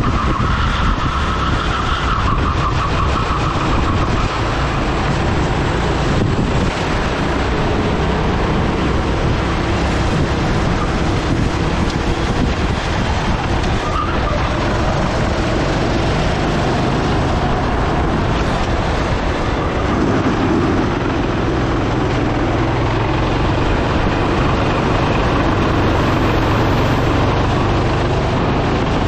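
Engine of a Sodikart rental kart running at racing speed, heard from onboard over a steady rush of air noise, its note shifting as the kart slows and accelerates through the corners.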